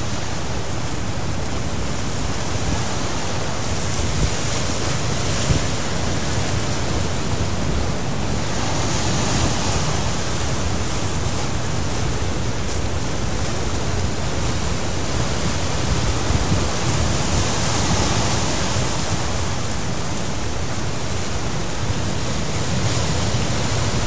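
Ocean surf breaking at the foot of a high sea cliff: a steady rushing that swells several times as waves come in, with wind buffeting the microphone.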